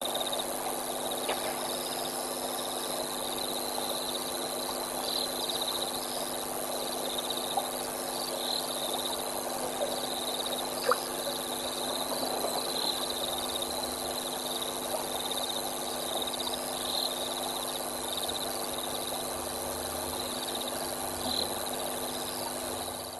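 Night-time riverside ambience: a steady chorus of insects chirring high, with frogs calling low beneath. A single faint tick about halfway through.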